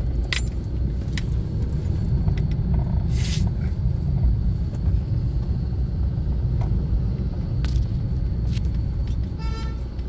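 Low, steady rumble of a car's engine and running gear heard from inside the cabin while moving slowly in a toll-plaza queue. A short burst of hiss comes about three seconds in, and a brief vehicle horn toot near the end.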